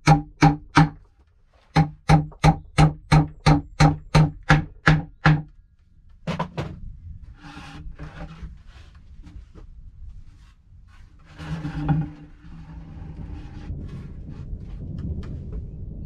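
Hammer blows into a wooden plank tabletop: a quick, evenly spaced run of ringing strikes, about three a second, stopping about five seconds in. Then scattered knocks and rustling as the boards are handled, with one louder thump about twelve seconds in.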